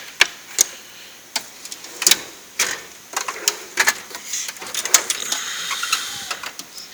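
Irregular sharp metallic clicks and clinks of Torx sockets and bits being handled and knocking together in a tool box drawer.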